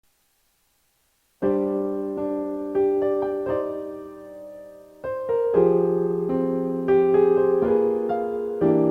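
Slow, lyrical piano melody with chords struck every second or so, each left to ring and fade; it begins after about a second and a half of silence.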